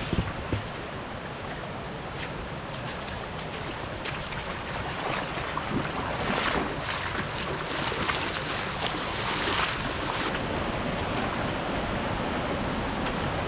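Shallow mountain creek flowing over gravel, a steady rush of water, with some wind noise on the microphone. For a few seconds in the middle there are sharper rustling crackles as spruce branches pass close by.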